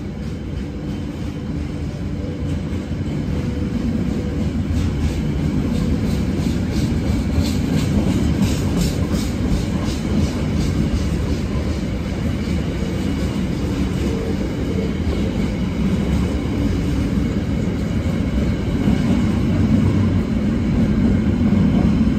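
Container flat wagons of a long freight train rolling past steadily: a continuous rumble of steel wheels on rail, with a run of sharp clicks about seven to ten seconds in.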